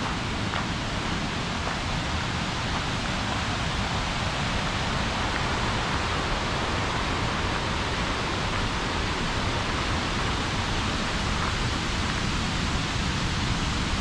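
Rarumanai River rushing through its rapids and falls: a steady, unbroken rush of white water.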